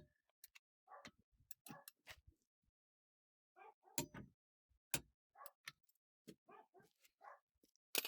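Irregular sharp clicks and knocks, with a dog whimpering faintly in between.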